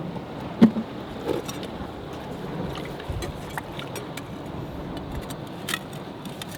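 Steady wind and surf noise on a rocky shore, with a few sharp clicks and knocks, the loudest about half a second in and another near the end.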